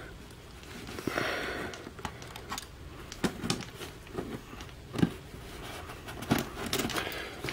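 A small cardboard shipping box being handled: scattered light taps, knocks and scrapes of fingers and hands on the cardboard, with a brief rustle about a second in.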